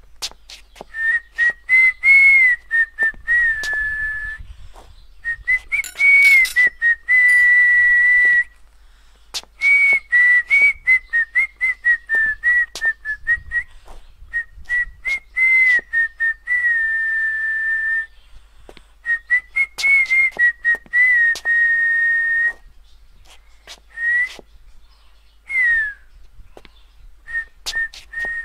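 A person whistling a tune in phrases of quick short notes and a few held ones, with short pauses between phrases.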